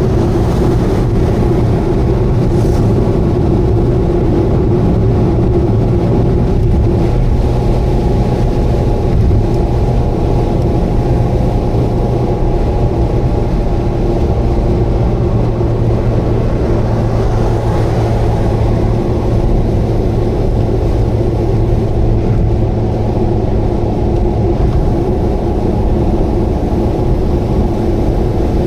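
Subaru Vivio's small four-cylinder engine and road noise heard from inside the car while cruising at a steady speed, with a constant low engine tone throughout.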